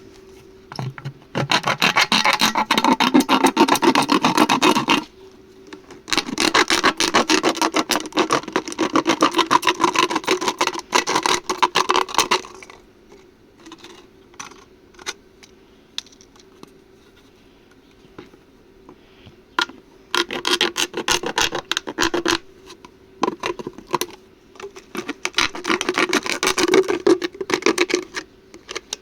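Arc welding: the arc crackles in long bursts of several seconds each, four runs with pauses between them, over a steady electrical hum.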